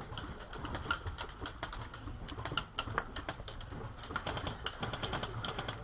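Birds calling, with scattered light clicks and ticks at irregular intervals over a low background rumble.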